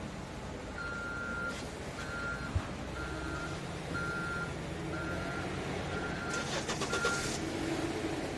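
A vehicle's backup alarm beeping seven times, about once a second, in a single steady pitch, over a low engine rumble. A short burst of hiss comes near the end.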